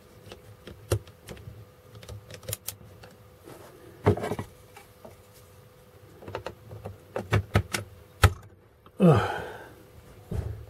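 Irregular plastic clicks and knocks as a desoldering gun's spring-loaded parts are fitted and its plastic housing halves pressed together by hand. A louder, longer sound with a falling pitch comes about nine seconds in.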